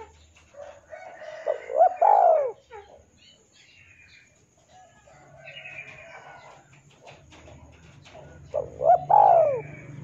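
Spotted dove (tekukur) cooing: two loud calls about seven seconds apart, each a short note or two running into a longer arched coo. Fainter, higher chirping goes on in the background.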